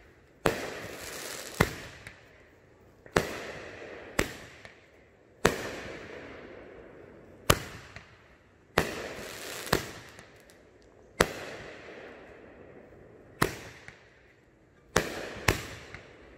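Aerial fireworks bursting overhead: about a dozen sharp bangs at uneven intervals of one to two seconds, each fading away over about a second, with two in quick succession near the end.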